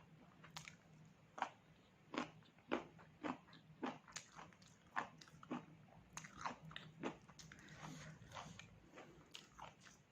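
A person chewing pork, close to the microphone: an irregular run of short, crunchy chewing sounds, about two a second.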